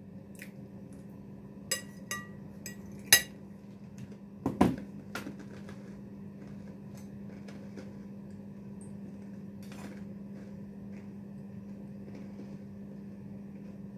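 A few sharp clinks and knocks of cutlery against a dish in the first five seconds: the loudest, about three seconds in, rings briefly, and another knock follows a second and a half later. A steady low hum runs underneath throughout.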